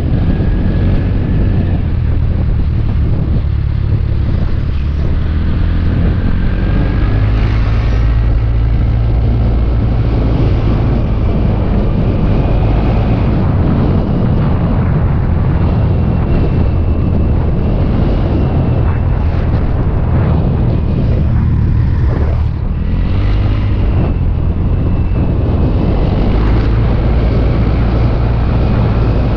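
Motor scooter engine running steadily while riding, a constant loud low drone with a haze of road and air noise over it.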